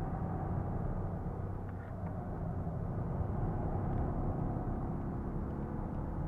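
80 PS Ford Fiesta's engine running steadily with tyre and road noise while driving at speed, heard from inside the cabin.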